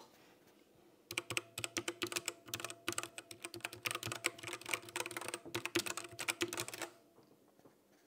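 MageGee 60% mechanical keyboard typed on rapidly for about six seconds, starting about a second in. The key clicks carry a metallic ringing resonance, a 'bing, bing, bing', which the owner thinks may come from the switch springs or the case.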